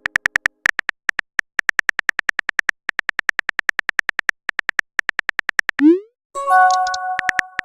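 Typing sound effect of a text-message chat: rapid pitched ticks, about ten a second, in runs with short pauses. Near six seconds comes a quick rising swoosh of a message being sent, then a ringing notification chime, and the typing ticks start again.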